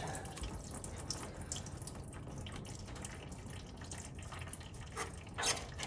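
Diesel fuel running out of a disconnected fuel line at the fuel filter, a little fountain fed from the tank above with no shut-off, splashing and dripping steadily while the new line is fitted.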